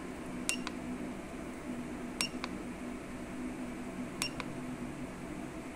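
Keypad buttons on a ZEUS Auto Scanner handheld diagnostic scanner pressed three times, about every two seconds. Each press is a sharp click with a short high beep, followed at once by a second lighter click, as the menu is stepped through to read the stored trouble codes.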